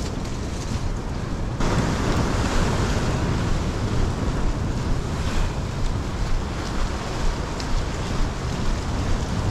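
Wind buffeting the microphone over the steady wash of rough surf breaking along a jetty; about one and a half seconds in, the hiss grows brighter and a little louder.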